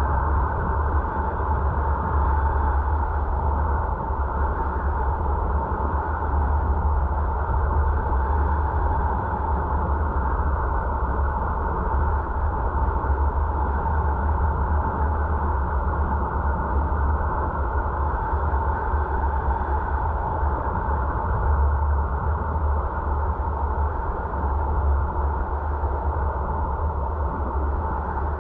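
Steady road and wind noise of a car driving, picked up inside the cabin by a dashcam microphone: a deep rumble with a steady hum over it.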